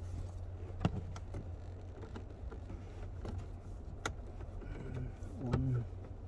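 Scattered sharp clicks and taps of a hand tool against plastic dashboard trim as screws under the glove box are sought out, over a steady low hum.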